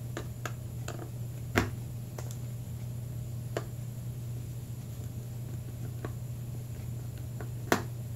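Scattered short clicks and taps from a Phillips screwdriver and picture-hanging wire being worked off the back of a picture frame, over a steady low hum; the sharpest click comes near the end.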